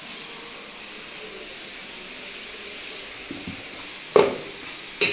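Masala with ginger and garlic sizzling steadily in oil in a karai, with a loud sharp knock about four seconds in.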